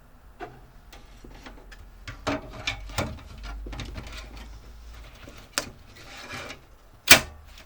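An SSD being pushed into a tool-less friction mount in a computer case: scattered clicks and rubbing, with a sharp click about seven seconds in.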